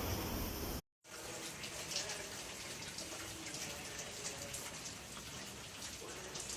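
A loud low rumbling noise cuts off abruptly just under a second in; after a brief silence, water runs and splashes steadily with an echo of a small room.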